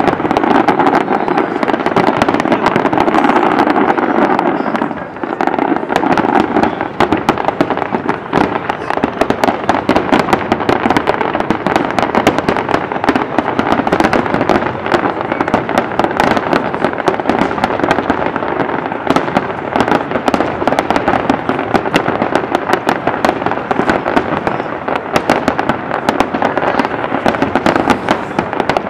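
Large aerial fireworks display, many shells bursting in rapid succession so that the bangs run together into a continuous loud barrage, with a brief lull about five seconds in.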